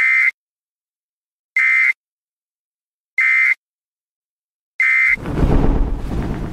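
Four short electronic beeps, a steady high tone each, evenly spaced about a second and a half apart in silence, then about five seconds in a loud, deep rumbling noise sets in: a news-style intro sound effect.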